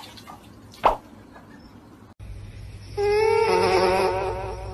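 A sleeping dog's sound picked up by a microphone at its nose and played through a loudspeaker: a buzzy, wavering tone lasting about a second, over a steady electrical hum. Earlier, a husky puppy's play gives one short sharp sound.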